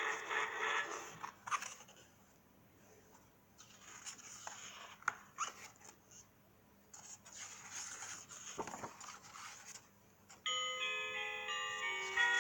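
Electronic sound effects and a chiming jingle from a children's sound book, with clicks and short noisy rustles in the quieter middle, and a chiming melody of clear steady notes starting near the end.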